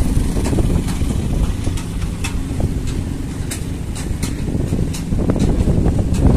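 Heavy tipper truck's diesel engine running at idle, a steady low rumble that grows louder about five seconds in, with wind buffeting the microphone.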